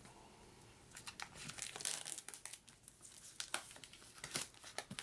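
Plastic shrink-wrap being torn off a new board game box and crumpled, a dense run of crackles starting about a second in.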